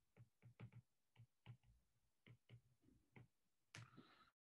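Faint, irregular clicks of a stylus tip tapping on a tablet's glass screen while handwriting, about a dozen light ticks.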